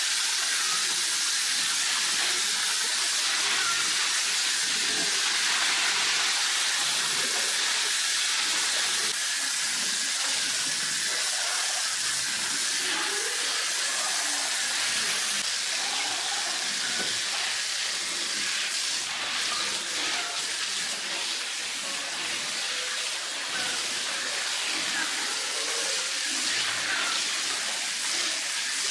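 A steady hiss, with faint scattered chirps and calls over it.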